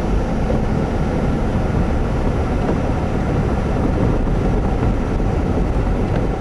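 Steady low roar of expressway traffic, with no single vehicle standing out.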